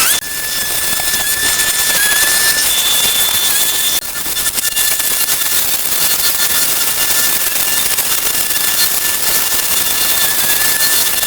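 Steady loud hiss with a thin high whistling tone running through it, dipping briefly at a few edit cuts.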